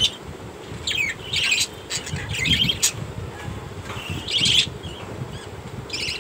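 Caged budgerigars giving harsh chattering squawks in several short bursts a second or two apart.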